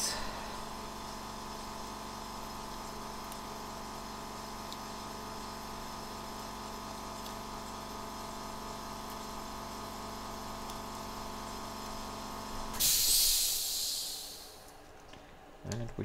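A steady machine hum with several pitches held together stops abruptly about thirteen seconds in, as a loud burst of hiss rises and fades over about a second and a half.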